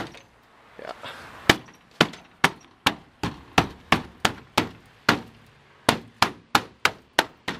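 Hand repeatedly striking a 1994 Toyota 4Runner tailgate's interior trim panel to seat its snap-in clips: a series of sharp knocks, about three a second.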